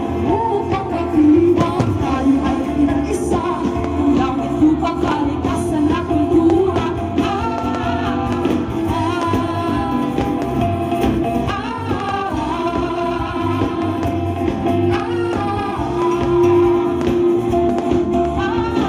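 Music with a singing voice, a song playing steadily with no clear firework bangs standing out above it.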